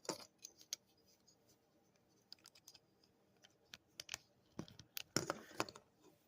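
Small plastic toy parts clicking and scraping as the pegs of the bulldozer armor pieces are pushed into the ports of a Transformers action figure. Faint, irregular clicks, with a louder cluster of them about five seconds in.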